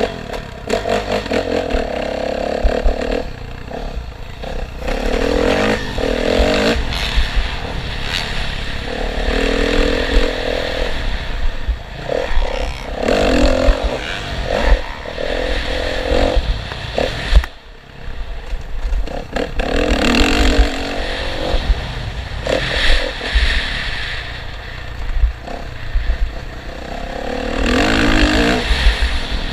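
Motocross dirt bikes racing, their engines revving up and dropping back in repeated surges every few seconds as they ride the track.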